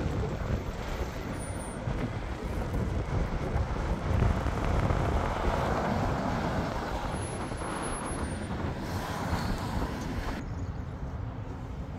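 Street traffic: cars driving past on a city street, a steady rush of engine and tyre noise that swells as one car passes close, about four to six seconds in, then eases off.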